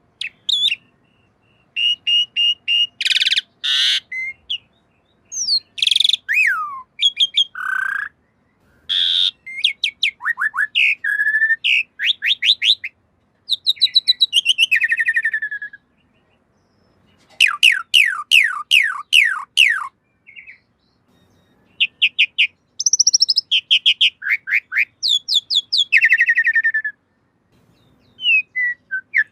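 Javan pied starling (jalak suren) singing in a string of varied phrases: clear whistles, harsh chatters and fast runs of repeated notes, some sweeping downward, with short pauses between phrases.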